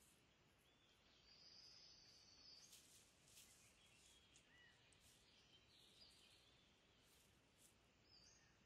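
Near silence: faint woodland ambience with a few faint high chirps and soft crackles.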